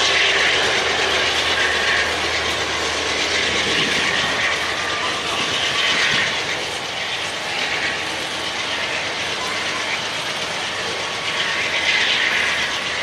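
Freight train of tank cars rolling past close by: steady rolling rumble and rattle of steel wheels on rail, with a brighter hiss that swells about every six seconds.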